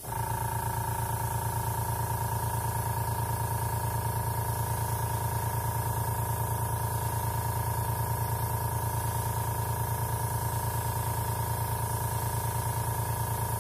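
Small airbrush compressor switching on and running steadily with a fast, even motor hum, under the hiss of air from the airbrush blowing across wet acrylic paint.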